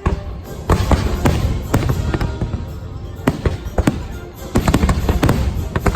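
Aerial fireworks bursting in rapid, irregular succession, a dozen or more sharp bangs, over patriotic music played through show speakers.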